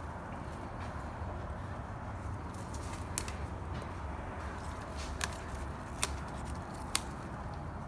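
Handling noise: a steady low hum with four short, sharp clicks in the second half, as the strawberry plants are handled.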